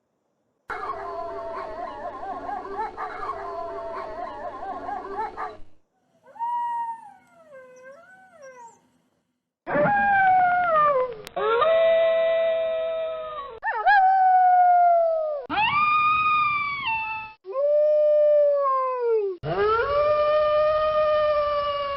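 Wolves howling. First comes a chorus of several overlapping, wavering howls for about five seconds, then a single fainter wavering howl. From about ten seconds in there is a run of loud, long howls, each sliding down in pitch and starting and stopping abruptly, like separate recordings joined together.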